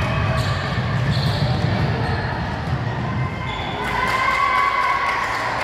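Basketball game sounds in a gymnasium: a ball bouncing and short knocks and sneaker sounds on the court over a steady hall rumble, with voices calling out, one drawn-out call about four seconds in.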